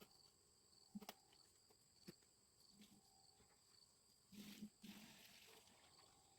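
Near silence outdoors, with a faint steady high insect chirring and a few light clicks. A short soft rustle comes about four and a half seconds in.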